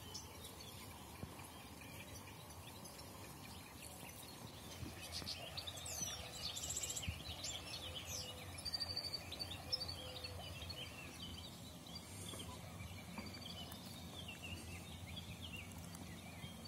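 Small birds chirping and singing, a busy chatter of short high calls and trills that picks up about four seconds in, over steady low outdoor background noise.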